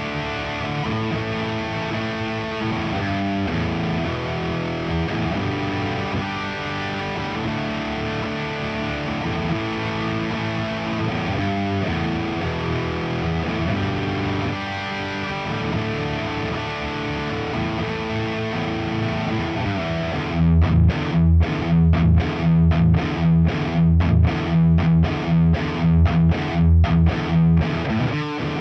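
Nik Huber Krautster I electric guitar with its Haussel pickup, played through a Diezel VH4 amp and a Marshall 4x12 cab with Celestion speakers. It plays distorted, ringing chords for about twenty seconds, then switches to a louder, tight, chopped low-note riff with hard stops between strikes.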